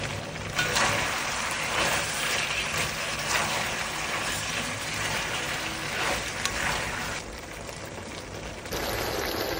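Dark soy sauce sizzling and bubbling in a stainless steel wok of beef and vegetables, with a run of short, regular scraping strokes through most of it. Near the end it settles into steadier bubbling.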